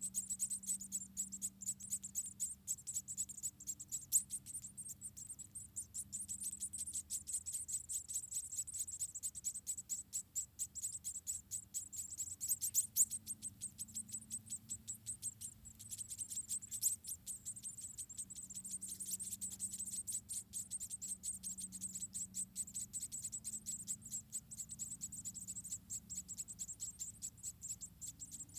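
Insects, likely crickets, chirping in a fast, even, high-pitched pulsing trill that runs on without a break, over a faint low hum.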